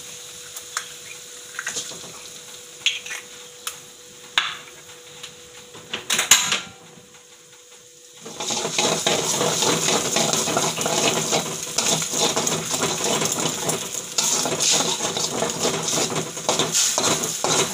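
An egg is cracked into a metal wok, with light clicks and knocks of a metal spatula and shell against the pan, one louder knock about six seconds in. About eight seconds in, steady sizzling of the egg frying in hot oil and chilli paste starts, with the spatula scraping the wok as the egg is scrambled.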